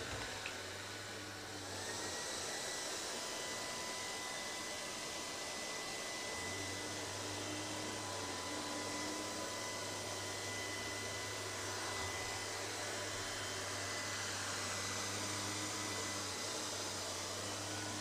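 LG CordZero R9 robot vacuum running with a steady motor whine. About two seconds in, the whine rises in pitch as the suction motor speeds up: carpet boost mode cutting in as the robot drives onto a bath mat. It then holds steady at the higher speed.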